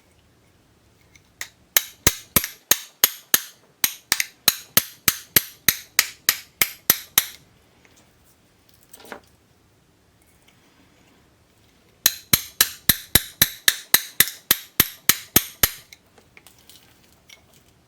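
Small hammer tapping rapidly on metal, about three to four sharp strikes a second, in two runs with a pause between. It is driving out a pinball pop bumper coil sleeve that has overheated and stuck fast in the coil.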